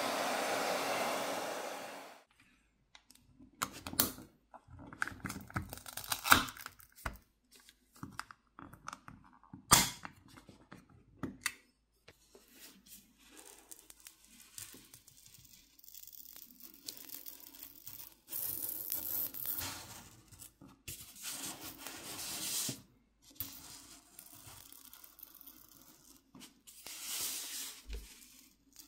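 A hairdryer blowing steadily for about two seconds, then a plastic pry pick scraping and working along the seam of the phone's plastic back plate. The softened adhesive tears and crackles as it separates, with scattered sharp clicks and snaps.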